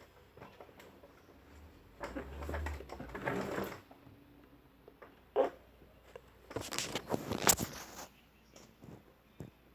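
Scattered rustling and squishing handling noises as soft play dough is squeezed and worked in the hands, in uneven bursts, the loudest about two-thirds of the way through.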